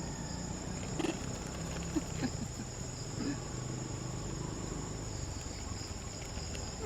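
Steady high-pitched drone of a chorus of insects, with a few short, faint squeaks about a second, two seconds and three seconds in.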